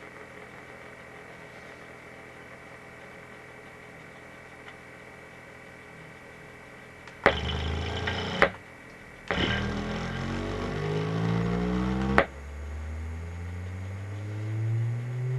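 Kicker Competition C6.5c subwoofers playing a rising test-tone sweep, after several seconds of faint hum. About halfway in come sharp clicks and two rough, buzzy stretches over the climbing tones, which the owner traces to one of the pair; after a last click the sweep runs on as a clean tone rising steadily in pitch.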